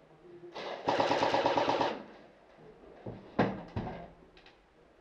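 Airsoft electric rifle firing a full-auto burst of a little over a second, starting just after the start, with a rapid buzzing rattle of shots. Around three and a half seconds in come a few short, sharp knocks.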